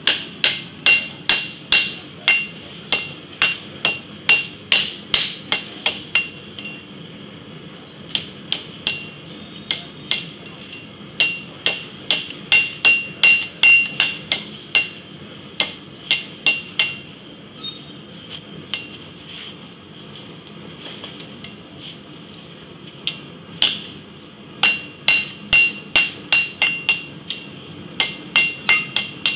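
Blacksmith's hand hammer striking a red-hot steel pipe end in a forming tool, forging the crimped wrapper end of a piece of pipe candy. Runs of quick blows, about three a second, each with a high metallic ring, broken by pauses of a few seconds.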